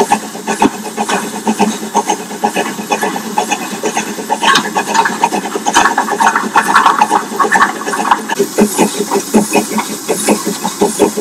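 Crampton-type 4-2-0 steam locomotive running, with a quick, even exhaust beat of about three chuffs a second. A louder hiss and clatter comes in the middle few seconds.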